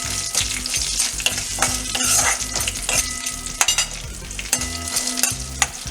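Green chillies and ginger frying in hot oil in a kadai, with chana dal, cumin and fenugreek: a steady sizzle while they are stirred, with scattered sharp scrapes and taps of the stirring utensil against the pan.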